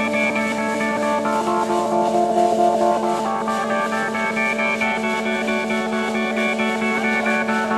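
Guitar-led music with steady, held notes at an even level.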